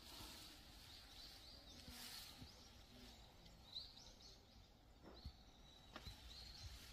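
Faint outdoor ambience with small birds giving short, high chirps every so often, and a couple of soft knocks near the end.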